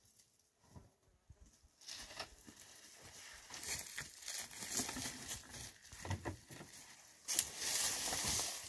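Footsteps scrambling over rock and through dry grass: irregular crunching and rustling with small knocks, starting about two seconds in. A louder stretch of rustling comes near the end.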